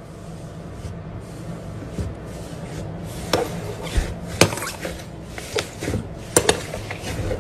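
Hands pressing, squeezing and kneading slime in a plastic tray, with a run of sharp clicks and pops starting about three seconds in. A steady low hum sits underneath.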